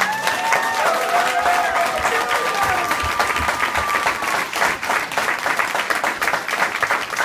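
Audience applauding: dense, sustained clapping from a crowd in a hall, with a few high-pitched calls over it in the first four seconds or so.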